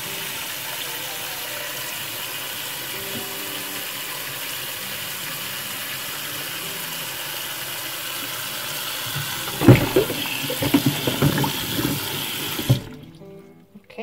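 Kitchen tap running steadily into a saucepan of baby bottle parts in a stainless steel sink, filling it with water. A few louder irregular clunks come a couple of seconds before the flow cuts off suddenly near the end as the tap is shut.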